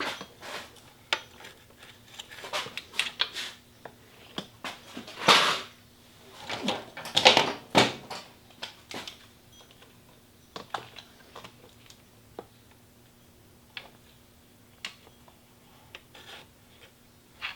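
Irregular clicks, taps and scrapes of a screwdriver and parts as the throttle and choke cables are worked loose from their distribution box. There are two louder scraping rasps, about five and seven seconds in.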